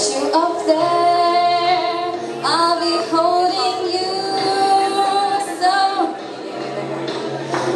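Female voices singing a song with music, with long held notes.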